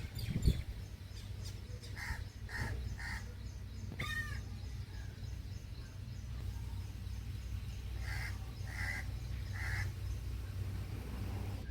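A crow cawing in two runs of three short caws, about six seconds apart, over a steady low rumble. A brief thump sounds right at the start.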